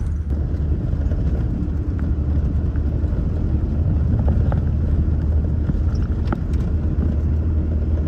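UAZ-452 "Furgon" van driving on an unpaved dirt track: a steady low engine and road rumble, with occasional light knocks and rattles.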